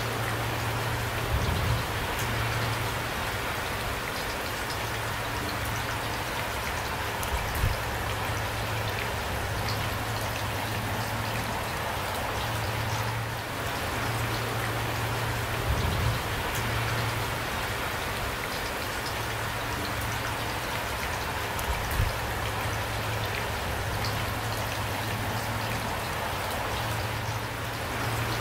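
Steady rain falling: an even hiss of many drops, with single drops standing out. A low hum comes and goes underneath, and there are a few short louder thuds now and then.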